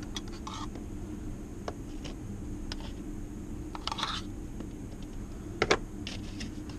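A fork scraping and clicking against a tub of wet cat food as the food is scooped out onto a paper plate. There are scattered small clicks and scrapes, with two sharper knocks a little before the end, over a steady low hum.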